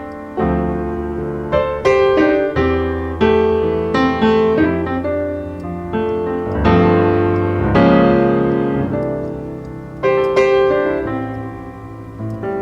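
Background piano music: a slow sequence of struck notes and chords, each ringing and fading.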